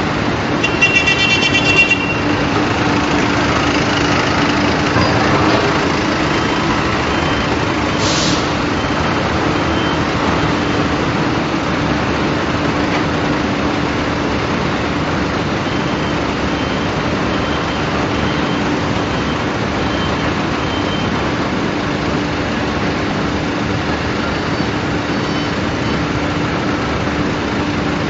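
Steady industrial machinery noise with a constant low hum. A brief high-pitched tone sounds about a second in, and a short hiss comes about eight seconds in.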